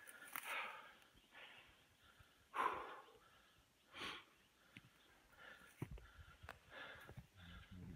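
Heavy breathing of a person climbing a steep slope under a heavy load, with a hard exhale every second or so, the strongest about two and a half seconds in. Footsteps scuff and click on rock and brush in the second half.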